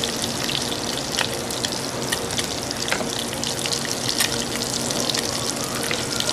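Lobster tail halves sizzling in foaming butter and olive oil in a skillet: a steady frying hiss with frequent small crackling pops.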